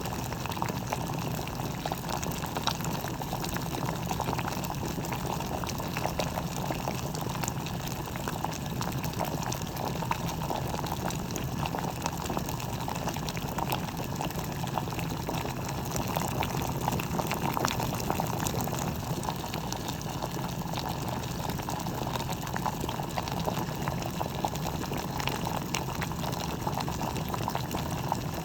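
Water boiling inside a Bodum gooseneck stainless steel electric kettle: a steady bubbling with many small pops and crackles throughout.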